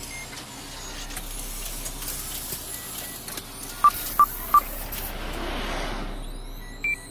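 Electronic beeps of a computer-style system sound effect: three quick beeps at one pitch about four seconds in, then a single higher beep near the end, over a low hum and hiss.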